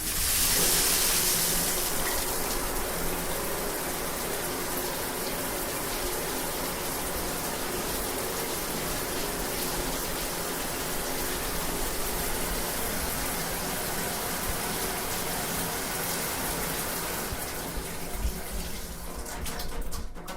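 Shower spray running steadily, water hissing down in a shower stall and beating on a fabric-covered speaker. It starts abruptly and has a few light knocks near the end.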